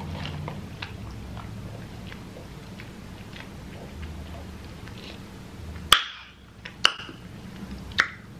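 Quiet sipping of a drink through a plastic straw, then three sharp clicks about a second apart near the end.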